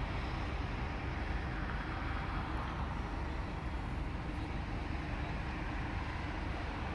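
Steady low rumble of the offshore supply ship's machinery running at the quay, with no sudden sounds in it.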